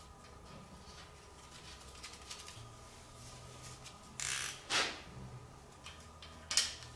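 Hand tools and metal engine parts being handled: light clicks and clinks, a short scrape about four seconds in, and two sharper clacks, about five and six and a half seconds in.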